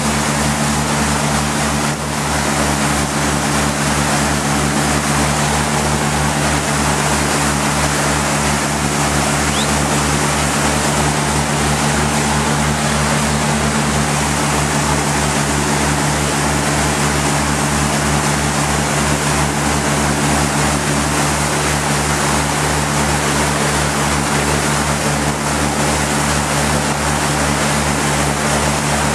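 Motorboat engine running steadily at cruising speed, heard from on board: a constant drone over the rush of the water churned up in its wake.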